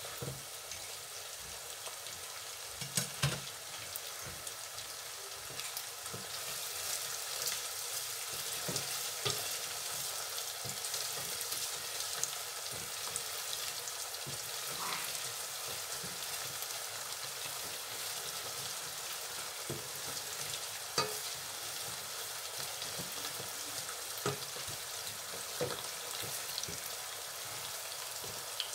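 Mutton meatballs and chopped onion frying in hot oil, a steady sizzle with a high hiss that grows a little louder about six seconds in. Occasional short clicks and scrapes of a wooden spoon stirring the onions in a steel pot.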